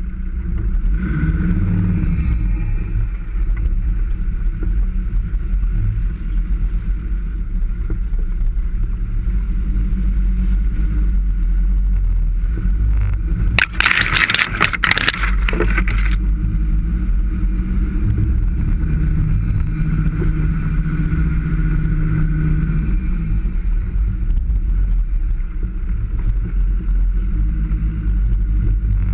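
Land Rover Defender engine running as it drives off-road, with the engine note shifting as it works. About halfway through, a loud burst of noise lasts about two seconds.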